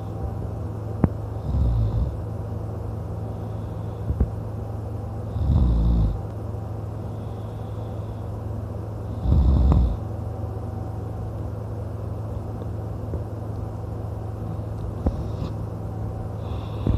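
A man snoring loudly in his sleep: three heavy snores about four seconds apart in the first ten seconds, then only softer breaths, over a steady low hum.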